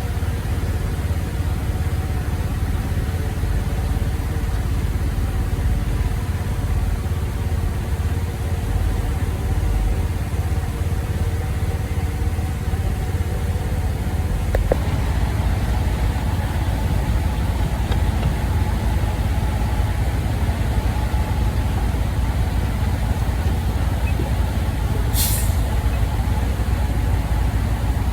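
Heavy vehicle engine running steadily with a deep rumble, and a short sharp hiss of released air near the end.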